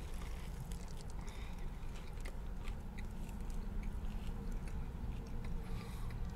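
A person biting into a crispy fried-chicken sandwich and chewing it, with many small crunches from the breaded chicken scattered throughout.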